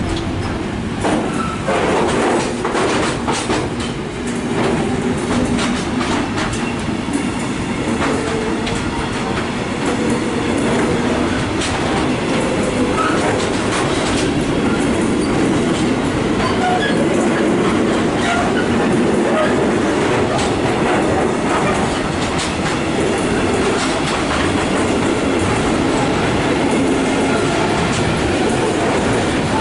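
A train running past on the track, its wheels clicking steadily over rail joints and points, with a continuous rumble of wheels on rail.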